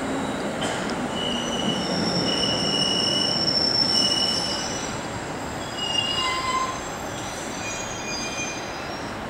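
Two coupled JR Central 311 series electric trains pulling into the platform and braking to a stop, with high thin squealing over the rumble of the train. The squeal is loudest about three to four seconds in and eases off after about six and a half seconds as the train slows nearly to a stop.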